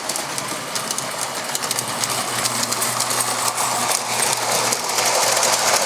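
Model train running on its track: a steady electric motor hum under a fast clatter of small wheels clicking over the rails, growing louder as it comes closer.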